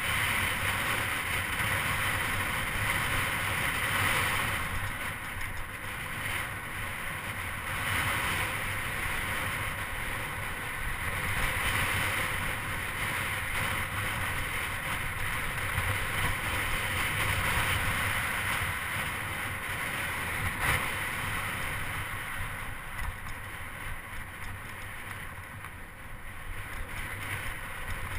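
Wind rushing over the microphone of a bicycle-mounted camera while riding, with rumble from the tyres rolling on cracked asphalt. The noise swells and eases and dips a little near the end.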